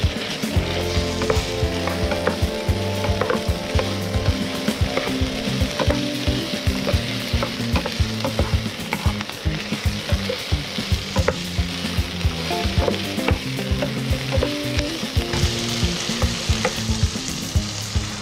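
Pork cubes and onion sizzling in a hot nonstick frying pan while a spatula stirs and scrapes them, with many short clicks from the spatula against the pan. Near the end the sizzle grows louder as the marinade is poured into the hot pan.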